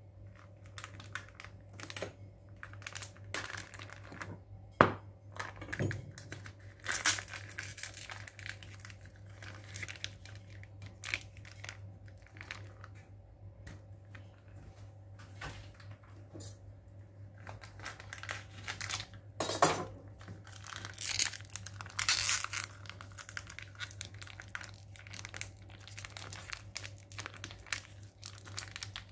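Plastic mozzarella pouch crinkling and tearing as it is pulled open and the cheese is squeezed out, in irregular rustles with a few sharp crackles.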